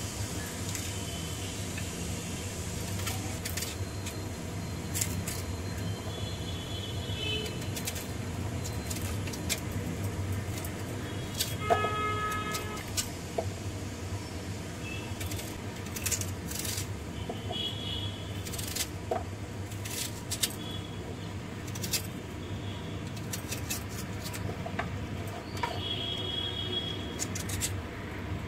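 Kitchen knife peeling and slicing a potato on a plastic cutting board: scattered short clicks and scrapes as the blade meets the board. A steady low hum sits underneath, and a vehicle horn sounds briefly about twelve seconds in.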